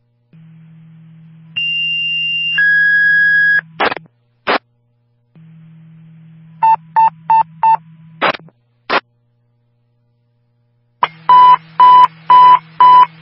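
Police scanner radio tones without speech: a steady high tone for about a second, then a lower one for about a second, followed by short static bursts from the radio keying up and dropping. Later come four quick short beeps, and near the end four louder beeps at about two a second, all over a steady low hum.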